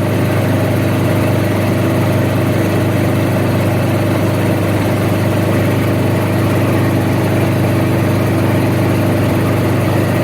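Helicopter in flight, heard from inside the cabin: a loud, steady drone of the rotor and engine with a strong low hum that does not change.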